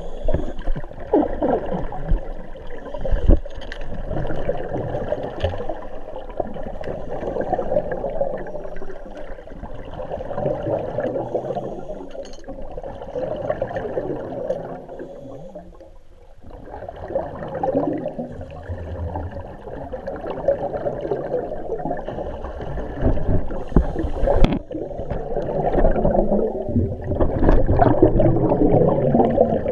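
Underwater sound of scuba divers' regulator exhaust bubbles gurgling and rushing, swelling and fading in waves every few seconds, with a few sharp knocks.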